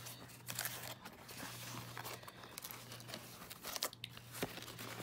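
Black nylon knife roll being handled and folded shut: fabric rustling with short rasps and a few light clicks.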